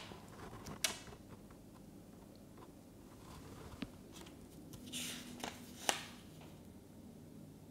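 Quiet small-room tone with a few faint mouth clicks and a soft breath about five seconds in.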